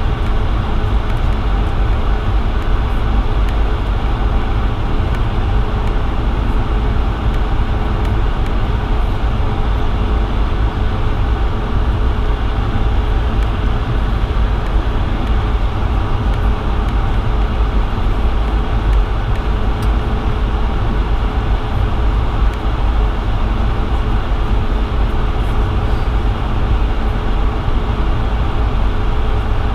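Steady cabin noise inside a Bombardier CS100 on the ground before takeoff: its Pratt & Whitney PW1500G geared turbofans running at low power, a deep rumble with a steady hum over it.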